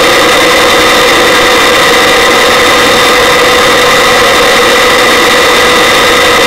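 Helicopter in flight, heard from a camera mounted outside on the airframe: steady, loud engine and rotor noise with a high held whine over a dense rush of air.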